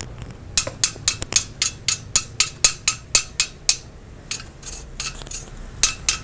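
Chipping hammer knocking slag off fresh stick-welded beads on thin steel plate: quick metallic taps about four a second, easing into lighter ticks for a couple of seconds before picking up again near the end.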